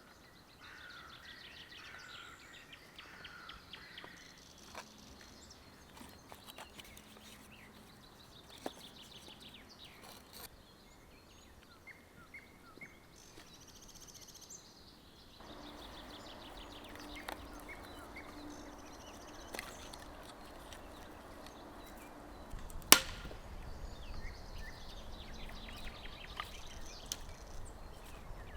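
Forest ambience with small birds twittering in short repeated trills, scattered light knocks and clicks, and one sharp, loud crack late on.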